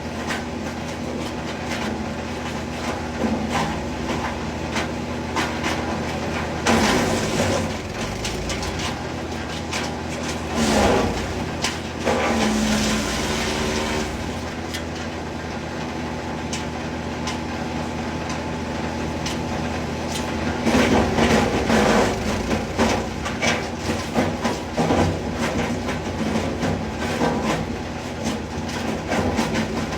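Engine-driven wood chipper running steadily with a rattle of small knocks, surging louder in several bursts as wood is fed in and chipped, about a quarter of the way in, near the middle and again past two-thirds.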